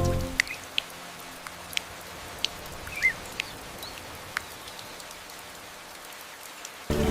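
Rain dripping: separate, sharp water drops falling every half second or so over a faint steady hiss, with a few short bird chirps. Music fades out just after the start and comes back in near the end.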